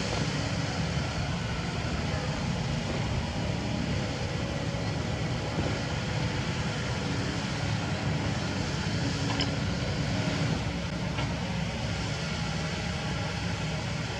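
Kobelco SK75 mini excavator's diesel engine running steadily at working speed.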